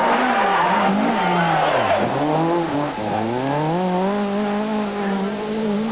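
Renault Clio Maxi Kit Car's four-cylinder rally engine at full race pace: the revs drop sharply twice as it slows for a bend, then climb and hold high as it accelerates out of the corner.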